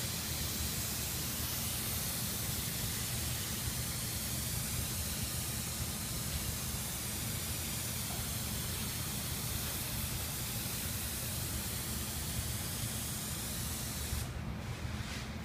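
Compressed-air spray gun hissing steadily as it sprays activator onto hydrographic film floating on the water of a dip tank. The hiss cuts off about a second before the end.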